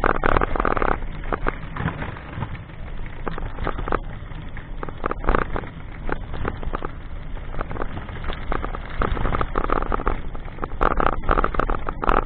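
Road and wind noise picked up by a vehicle-mounted camera riding over a rough road, with many short rattling knocks throughout.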